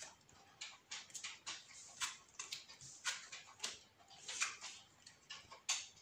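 Sleeved Yu-Gi-Oh cards being handled: short, irregular swishes and taps as cards are slid and laid down on a playmat and a hand of cards is fanned, with a few sharper ones about two, three, four and a half and near six seconds in.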